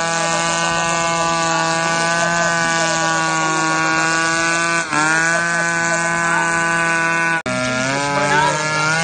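A small engine running steadily at one pitch, dipping briefly about five seconds in and settling lower about a second and a half before the end.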